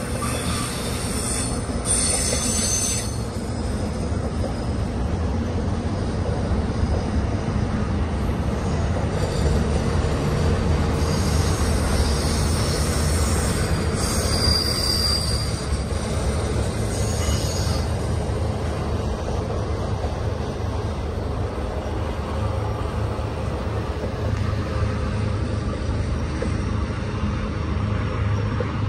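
Double-stack intermodal freight train's container well cars rolling past with a steady rumble of wheels on rail. High-pitched wheel squeal rises a few times along the way.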